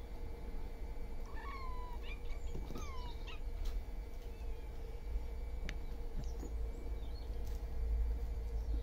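A young cat meowing: several short, falling meows between about one and a half and three and a half seconds in, over a steady low hum.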